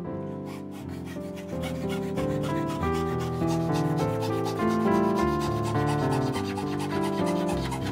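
Hand fret saw cutting a shape out of thin wood, its fine blade rasping in quick back-and-forth strokes, with instrumental music playing over it.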